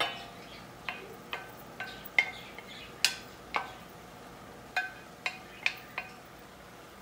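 Wooden spoon knocking and scraping against an enamelled dish, pushing chopped tomato and onion off it: about a dozen sharp, irregular clinks, each with a brief ringing tone.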